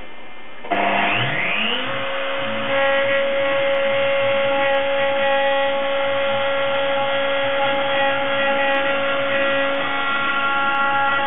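CNC milling machine spindle spinning up with a rising whine about a second in, then running at a steady pitch while a 2 mm ball-nose cutter roughs a thin plastic sheet. A steady hiss runs underneath.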